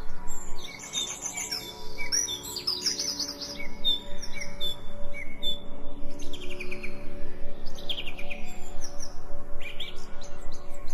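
Songbirds chirping and twittering in short bursts and quick trills, over soft sustained background music.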